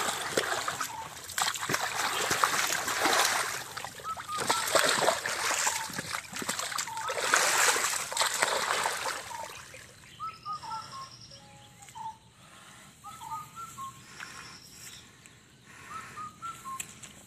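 Muddy water splashing and sloshing in repeated bursts as an Asian elephant calf rolls in a mud puddle. About ten seconds in the splashing dies down, and birds chirp with short whistled calls.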